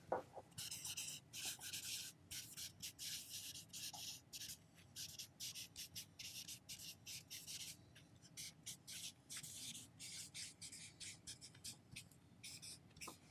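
Dry-erase marker writing on a whiteboard: a long run of short, faint scratchy strokes, with small gaps between letters and words.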